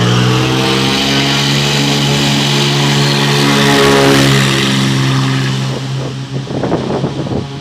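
Cessna 206 single-engine propeller plane at takeoff power, its six-cylinder piston engine and propeller droning steadily as it passes, loudest about four seconds in, then fading away. Wind buffets the microphone near the end.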